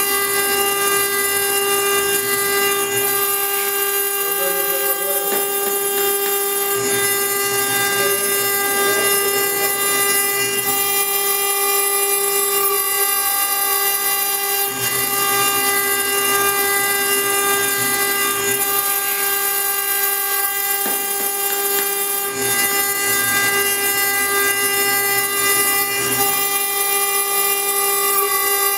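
CNC-1218 router's spindle running steadily as its pointed engraving bit cuts stone under a water coolant stream: a constant high whine with many overtones, over the rough, uneven noise of the bit grinding the stone.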